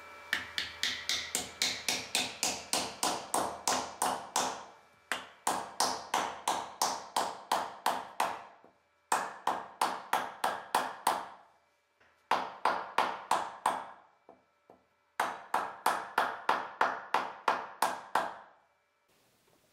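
Rapid knocking as an axe is hung: the steel head is seated on its wooden handle and the wedge is driven into the handle's top. The blows come in five runs of about four a second, each blow with a short ring.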